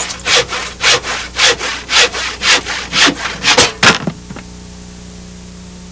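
Rhythmic rasping strokes, about two a second, that stop about four seconds in; a steady hum follows.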